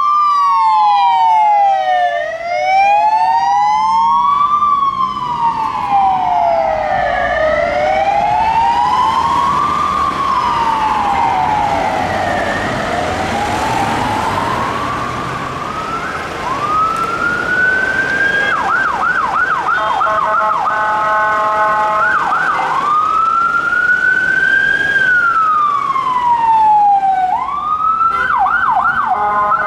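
Electronic police sirens. First a slow wail from a Belgian police van, rising and falling about every five seconds. About halfway in, British police van sirens take over: a rise to a held high note, bursts of fast yelps with a steady blaring horn tone, then a wail again.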